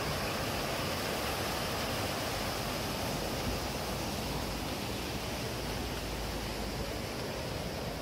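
Shallow mountain stream rushing over rocks and boulders in small rapids, a steady, even rush of water.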